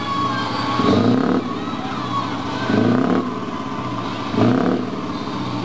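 Scania 164 580 V8 truck engine running at idle and blipped three times, each rev rising briefly and falling back, about a second and a half apart.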